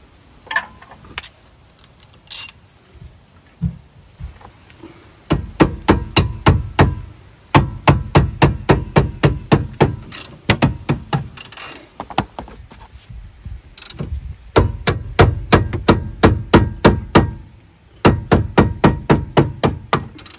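Rubber mallet striking the handle of a wrench over and over to break loose the 17 mm rear brake caliper bracket bolt. A few light knocks at first, then from about five seconds in, runs of quick strikes at about three a second with short pauses between the runs.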